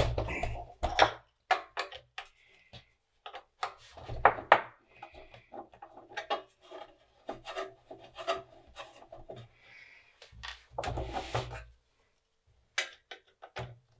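Irregular clicks, knocks and scraping from a screwdriver working on the screws of a metal dual floppy drive case and the case being handled and opened.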